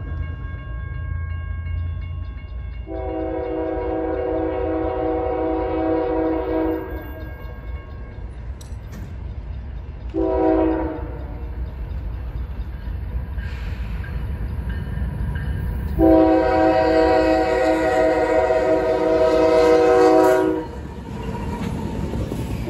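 CSX diesel freight locomotive's air horn sounding a grade-crossing warning: a long blast, a short one, then a long one held about four seconds. Under it the low rumble of the approaching locomotive, which passes close near the end.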